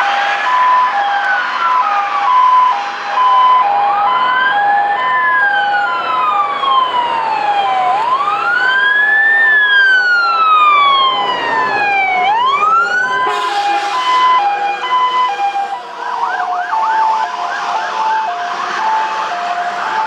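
Fire engines' sirens and two-tone horns on an emergency run. Slow wailing siren sweeps rise and fall about every four seconds over a steady alternating high-low two-note sound. About 13 seconds in comes a short hissing burst, then a faster warbling siren with a lower two-note pattern.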